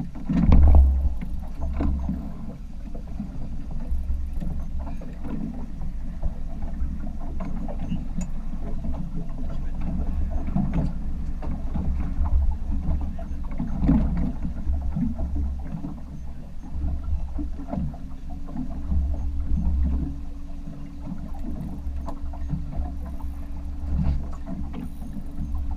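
Small fishing boat at sea: a steady low rumble of wind and water against the hull, with scattered knocks, the loudest about a second in.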